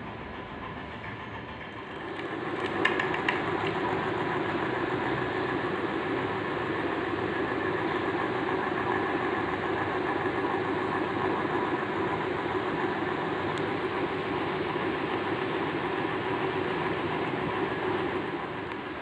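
Usha ceiling fan running, its stuck 6201 bearing now cleaned and greased, a steady mechanical whirr that grows louder about two seconds in, with a few clicks around then, and eases off near the end.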